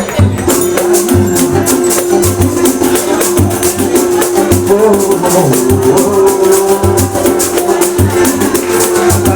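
Percussion-led music: deep drum beats in a repeating pattern under a fast shaker rhythm, over a held low note.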